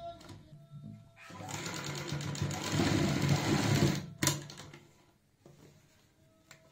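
Sewing machine stitching piping onto a neckline. It stops briefly just after the start, then runs again for about three seconds and stops, followed by a sharp click and faint fabric handling.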